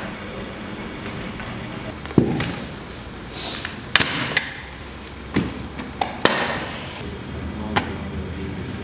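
Irregular knocks and thuds from handwork at a bread-making table, about seven over the stretch, the loudest about two seconds in, over a steady background noise.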